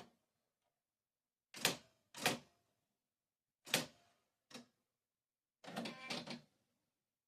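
Typewriter mechanism clacking: four separate sharp strikes, then a quick run of clicks about two-thirds of the way through.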